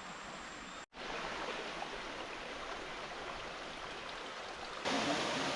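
Steady rushing of stream water on a waterfall hiking trail, growing louder near the end.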